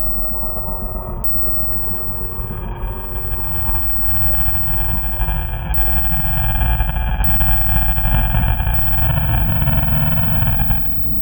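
Deep, distorted monster growl made for horror sound design, a long steady rumble that grows louder midway and cuts off suddenly near the end.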